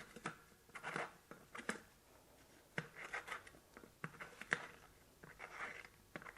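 Faint, irregular clicks, taps and short scrapes of the filters being handled and fitted back onto a Gast oilless vacuum pump.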